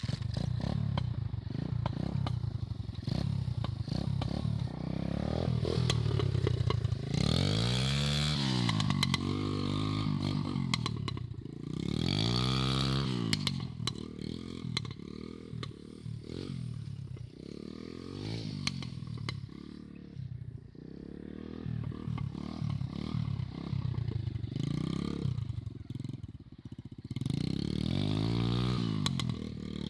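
Small 125 cc dirt bike engine being ridden, revving up and falling back again several times.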